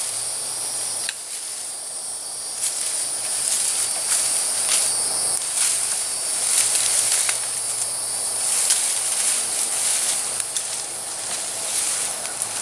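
Brush being cut back with loppers: irregular snips, snapping twigs and rustling undergrowth, over a steady high-pitched chorus of insects.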